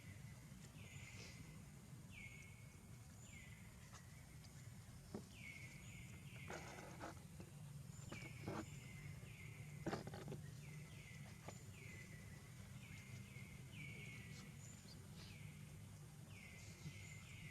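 Faint repeated animal calls, short chirps that fall in pitch, about one a second, over a low steady hum, with a few soft knocks in the middle.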